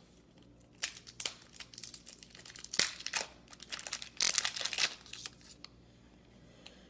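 Baseball card pack wrapper crinkling and crackling as it is handled and torn open, in a run of sharp rustles that starts about a second in and stops about five seconds later.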